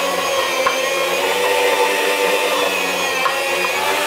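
Electric deli meat slicer running, its motor giving a steady hum with several held tones as the spinning blade slices a round piece of meat pushed through on the carriage.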